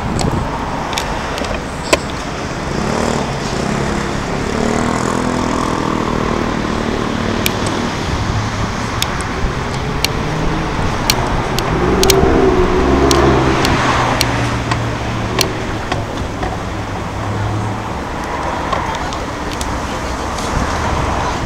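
Steady city road-traffic noise, with an engine-like hum swelling through the middle and loudest about halfway in. Scattered sharp clicks run over it.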